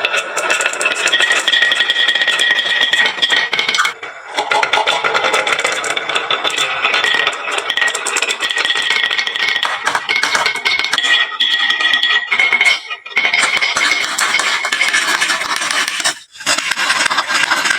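Many marbles rolling and clattering down a HABA wooden slope marble run, a dense rattle with a ringing tone over it. It breaks off briefly three times.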